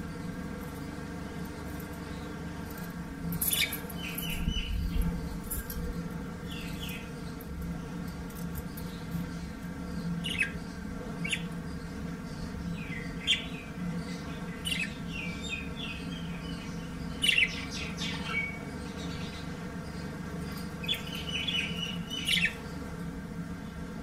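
Budgerigars chirping in short, scattered calls, answering neighbouring parrots. A steady low hum runs underneath.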